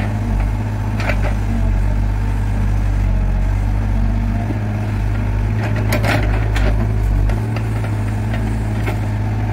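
Hitachi crawler excavator's diesel engine running steadily, with the hydraulic boom working the bucket down at the ground. A few short sharp knocks come through about a second in and again around six to seven seconds.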